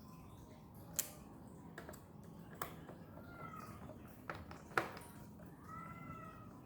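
Scattered sharp clicks and taps of small screws and a screwdriver against a laptop's plastic bottom case as it is screwed back together, four of them standing out.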